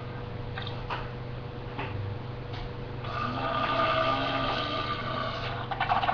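A drawn-out, whiny, pitched fart-like noise about halfway in, followed near the end by a rapid fluttering one, over a steady low electrical hum.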